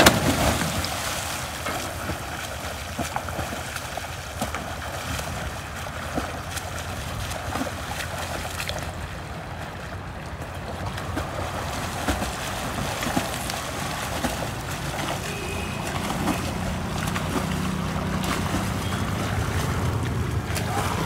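A loud splash as a person jumps into the canal at the start, followed by the irregular splashing of two people swimming front crawl through the water.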